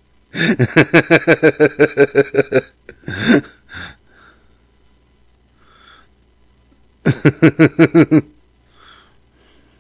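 A man laughing in two bouts of rapid, pulsing "ha-ha" laughter: a long one of about two seconds at the start and a shorter one about seven seconds in.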